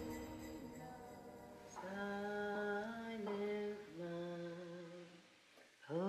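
A voice humming a slow, wordless tune in long held notes of about a second each, sliding up into some of them.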